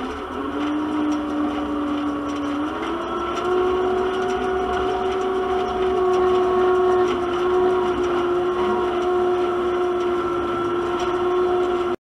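Tractor drawing a John Deere small square baler, running with a steady mechanical whine that steps up in pitch about three seconds in.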